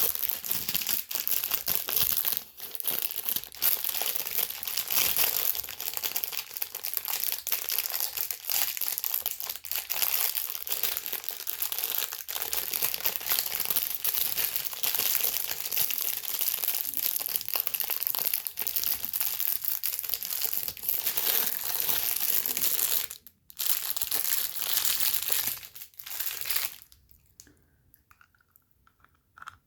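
Food packaging crinkling and tearing as it is handled, with a short break a little after twenty seconds, stopping about 27 seconds in.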